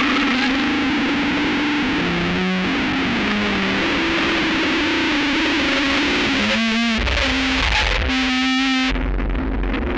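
Dark ambient electronic metal music: a dense, distorted wall of effects-laden guitar and synthesizer with held low notes that shift in pitch. A wavering, warbling passage and a deep bass come in about two-thirds of the way through.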